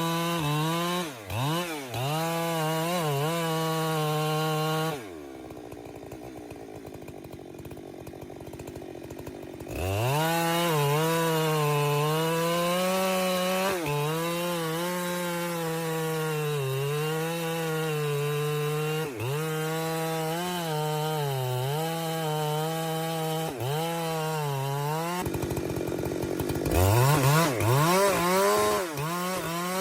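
Two-stroke chainsaw at full throttle cutting into a big tree, its engine note sagging and recovering repeatedly as the chain bogs in the wood. About five seconds in it drops back to a quieter idle, then revs up again near ten seconds. It eases off again late on and climbs back up near the end.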